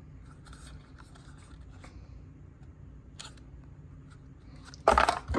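Small metallic clicks and scrapes as a ball-bearing folding pocket knife is handled and its blade opened and closed, with a louder clack about five seconds in.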